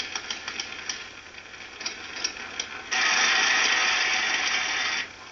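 Slapstick film soundtrack heard through laptop speakers: light clicks and rattles, then a hand-held fire extinguisher spraying in a loud hiss that starts and stops abruptly and lasts about two seconds.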